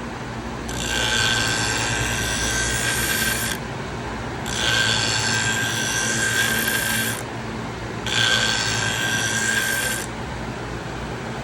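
A pinking-shear blade ground against the spinning abrasive wheel of a Wolff Twice As Sharp scissor sharpener in three passes of two to three seconds each, a rasping hiss with a steady whine. A low motor hum runs steadily between the passes.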